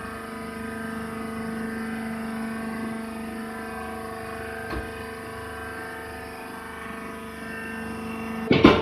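Hydraulic press baler running with a steady machine hum. There is a single click about halfway through and a loud clank near the end.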